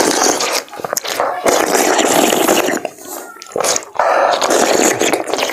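Several people slurping and sucking curd (yogurt) straight off plates with their mouths, no hands. It comes in long, wet, noisy stretches of a second or more, with short breaks between.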